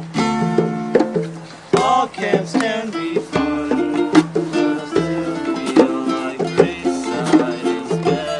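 Music played on plucked string instruments, with quick, bright notes that each start sharply and fade.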